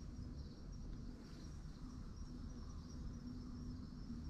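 Faint insect chirping, a high, rapid, evenly pulsing trill, over a low rumble.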